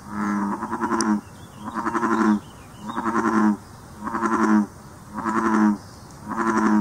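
American bullfrog calling: a series of six low, pitched calls, each just under a second long, repeating about once a second. This is the male's advertisement call.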